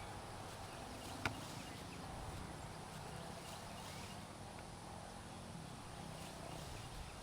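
Quiet outdoor ambience: steady low background noise with one sharp tap about a second in.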